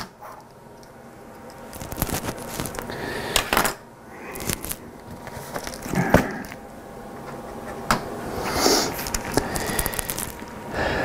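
Pages of a Bible being leafed through and rustled, with small clicks and taps from handling the book and its cover, as a passage is looked up.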